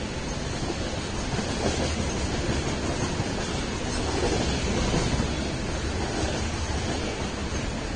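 Freight train of loaded tank cars rolling past close by, a steady rumble of steel wheels on the rails.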